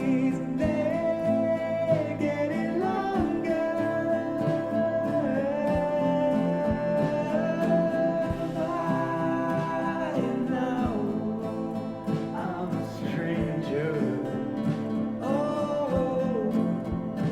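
A recorded song playing: a low-voiced singer holding long notes and sliding between them, over instrumental backing.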